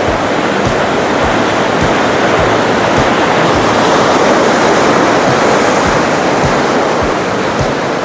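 Whitewater rushing loudly through a creek rapid, a steady roar of churning water. Under it runs a low thump about every half second.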